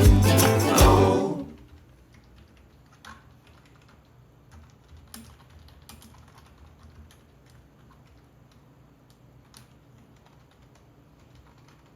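A song ends about a second in, then faint, scattered key clicks from a retro-style keyboard being typed on.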